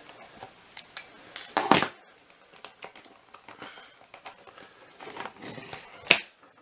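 Handling noise from taking apart a cordless vacuum's power nozzle: metal pliers set down on a wooden table with a clatter about two seconds in, small clicks and rustles of wires and plastic parts, and a sharp knock near the end.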